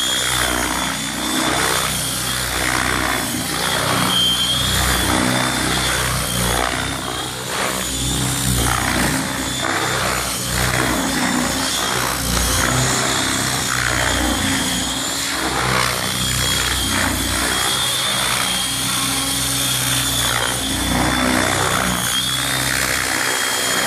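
A 700-size radio-controlled helicopter in flight. The rotor noise beats steadily under a high whine, and the rotor sound swells and fades as it manoeuvres.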